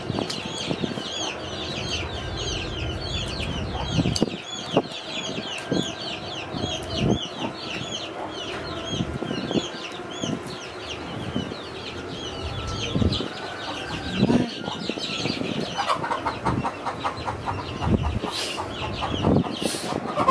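Birds chirping over and over, about four short high chirps a second, each falling in pitch. The chirping stops a few seconds before the end. Scattered low knocks and taps run underneath, and a quick run of ticks comes near the end.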